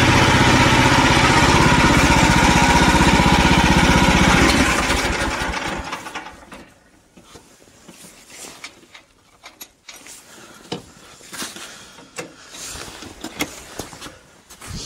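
MTZ walk-behind tractor's single-cylinder engine running steadily, then about four and a half seconds in dying away over a second or so as it shuts down. After that, only scattered light clicks and knocks.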